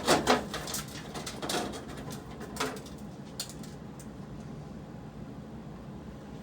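A cluster of sharp clicks and scrapes from parts being handled, loudest in the first half second, a last one near three seconds in, then a steady low hum.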